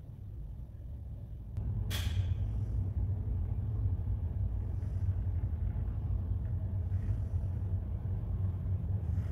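Steady low rumble inside a ferry under way, the drone of the ship's engines and ventilation. It steps up in level about a second and a half in, with a click and then a short sharp hiss about two seconds in.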